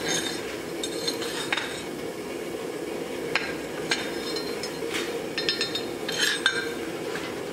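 Steel axe blank and blacksmith's tongs clinking and scraping against the anvil as the piece is shifted and turned. There are several irregular sharp metallic clinks with brief ringing, over a steady low rushing noise.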